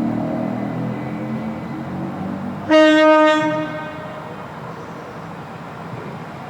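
Passing train rumbling, then about two and a half seconds in one loud blast of its horn, a single note lasting about a second that dies away quickly.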